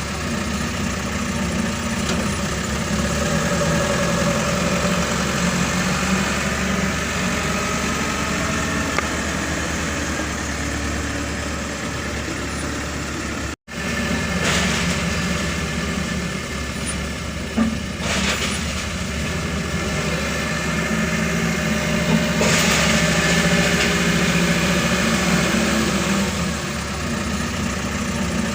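Diesel engine of a heavy earthmoving machine running steadily while loading sand, with a sudden brief dropout about halfway and a few short surges of noise in the second half.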